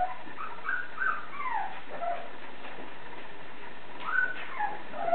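Thai Ridgeback puppy making short high-pitched squeaks and whines, some falling in pitch, a run of them in the first two seconds and more about four seconds in.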